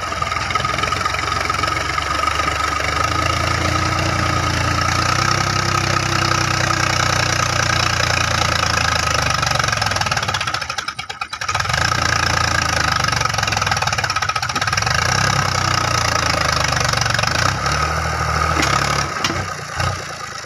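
Diesel engine of a Fiat 480 tractor running steadily under load as it pulls a tine cultivator through the soil. The sound drops away briefly about halfway through.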